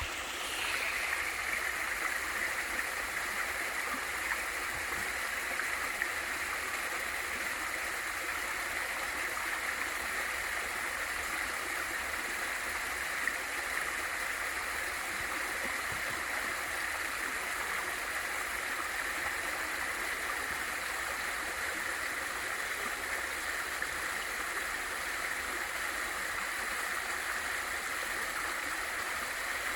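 Water of a small waterfall in a mountain valley stream rushing and splashing steadily, a continuous hiss with no break.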